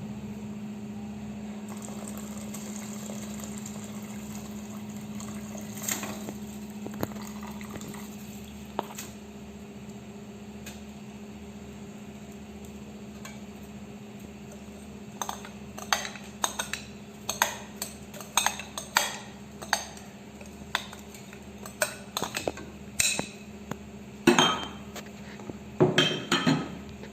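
A metal spoon knocking and clinking against a cooking pot, as rice goes in with the water and is stirred: a quick, irregular run of sharp clinks through the second half, loudest near the end, over a low steady hum.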